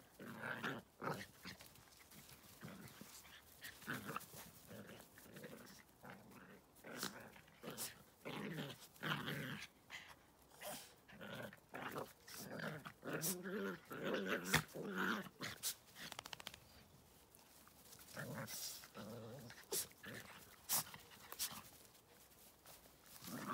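Two puppies play-fighting, growling in short bursts that come thickest about halfway through.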